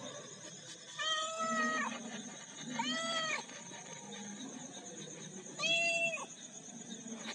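A cat meowing three times, drawn-out calls that rise and fall in pitch, the first the longest.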